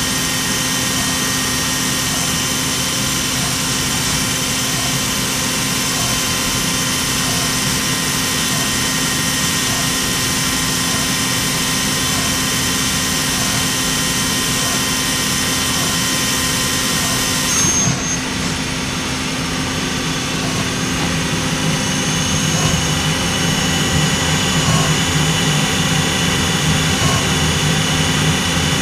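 INDEX ABC CNC lathe running: a steady machine drone with several steady tones over it. About 18 s in the sound shifts, then it grows a little louder.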